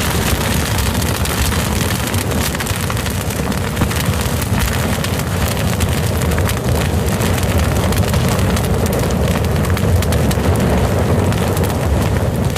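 Wood fire burning with a steady low rumble and a constant spatter of small crackles and pops.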